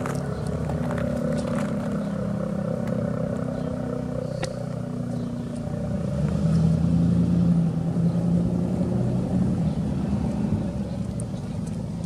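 ACA P-15 rotating siren sounding its attack signal, a steady low tone. It swells loudest about six seconds in as the rotating horn faces the listener, then eases off as it turns away.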